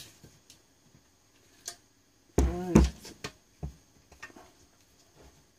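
Scattered light clicks and taps of small metal parts being worked loose by hand: the front-panel neon indicator lamp and its little metal retaining brackets. A short voiced utterance about two and a half seconds in is the loudest sound.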